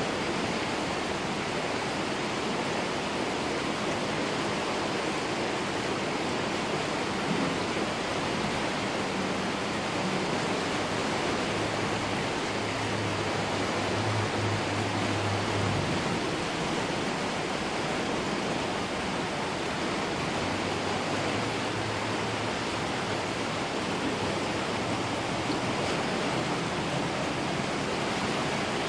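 Steady rushing of a creek running high with floodwater. A low hum comes in for a few seconds midway.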